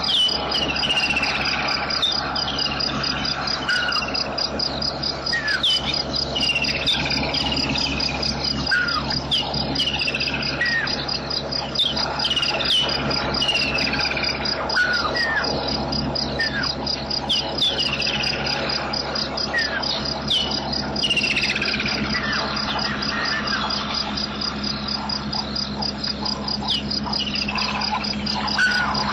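Bush ambience: a steady, fast-pulsing insect trill, typical of crickets, runs throughout. Many short whistled bird calls slide downward in pitch over it, under a faint steady low hum.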